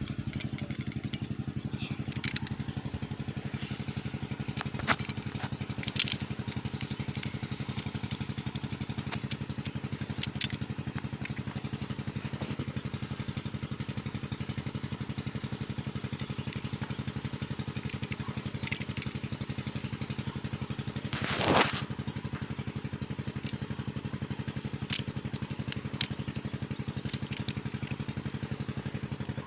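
A small engine runs steadily nearby with a low, even, fast pulsing. A few light clicks and scrapes come over it, and about two-thirds of the way through there is one brief, louder scraping rush.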